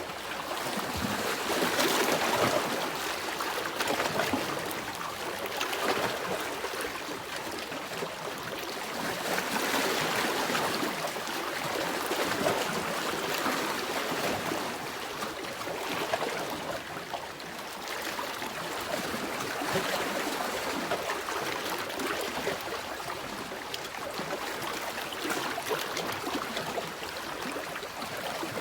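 Ocean waves washing in, the rush of water swelling and easing every few seconds.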